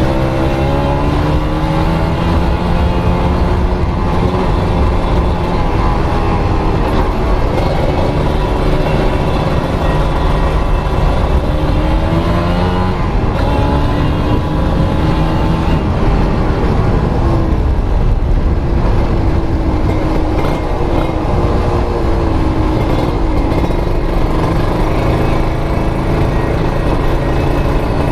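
Kawasaki Ninja RR's 150 cc single-cylinder two-stroke engine, fitted with a Mikuni VM28 carburettor, running with its pitch repeatedly rising and falling as the revs change, while the carburettor setting is tested.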